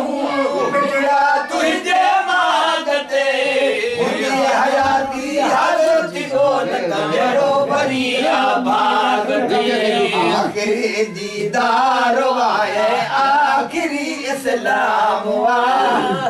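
Men's voices chanting a devotional naat in Sindhi, unaccompanied.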